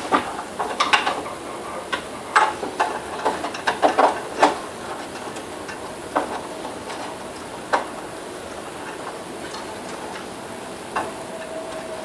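Wiring and plastic parts rustling and clicking as bundled wires are pushed down into an exercise bike's console post. The clicks come thick for the first four seconds or so, then only now and then.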